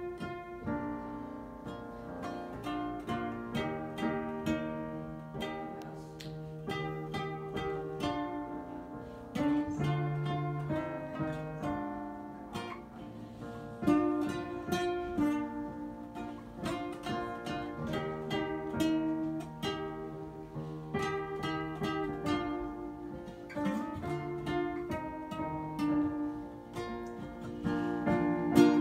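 Acoustic guitar and piano playing an instrumental piece together: a slow tune of plucked and strummed guitar chords with held keyboard notes.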